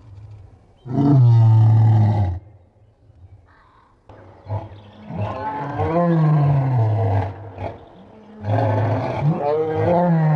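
Pitched-down lion roar sound effect, made to suggest a giant extinct Sambir lion: three deep, drawn-out roars that each fall in pitch, the first short, the second longest, the third running on past the end, with faint low grunts between them.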